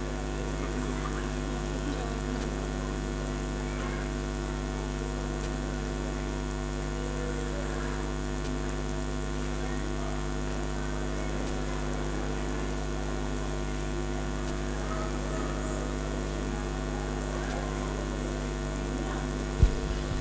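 Steady electrical mains hum from the hall's sound system, a low buzz with a ladder of overtones, under faint scattered voices; a single thump near the end.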